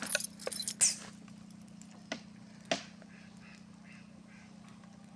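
A few sharp clacks in the first second, the loudest about a second in, then a run of short repeated animal calls, two or three a second, in the second half.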